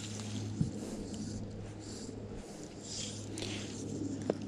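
Fly line being pulled in by hand, making short soft rasping swishes several times, over a steady low hum, with a couple of small clicks.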